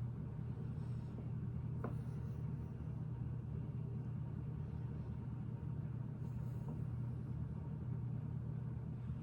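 A steady low hum throughout, with faint clicks of Lego pieces being handled, one about two seconds in and another near seven seconds.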